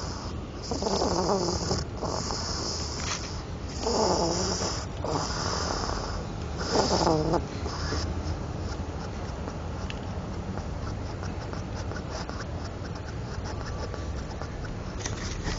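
Pet hedgehog snoring in its sleep: several breathy snores, one every second or two, in the first half, then a faster, even run of short rattling breaths.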